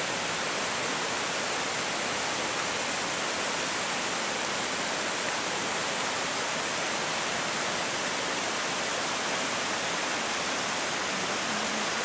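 Rushing water of a mountain stream cascading over rocks below a waterfall: a steady, even rush.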